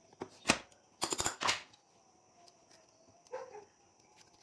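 Sharp clicks and rattles of parts being handled on a workbench: one about half a second in, a quick cluster about a second in, and a softer knock near the end.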